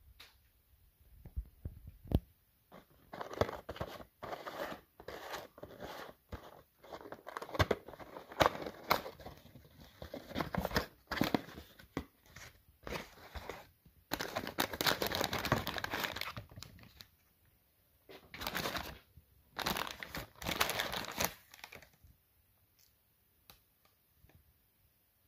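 Paper burger wrapper and cardboard burger box being handled and opened, in irregular bursts of crinkling and rustling. The longest, loudest crinkling comes a little past halfway, and the handling dies away near the end.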